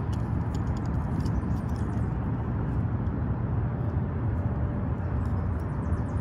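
Steady low outdoor background rumble with a few faint, light ticks.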